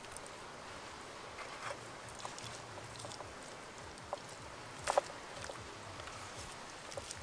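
Hands working a chopped chili-and-garlic seasoning into raw pig ears on a wooden board: scattered soft clicks and taps, with a sharper pair of clicks about five seconds in, over a steady faint hiss.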